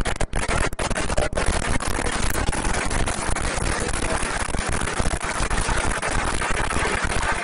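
Football crowd cheering and clapping a goal, starting suddenly and staying loud and dense throughout.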